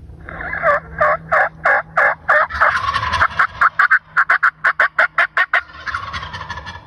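A loud run of turkey yelps, about three a second, quickening past the middle into faster, choppier cutting notes before breaking off near the end.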